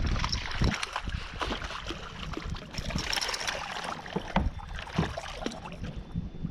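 Water lapping and splashing against a plastic fishing kayak's hull, with scattered light knocks on the boat.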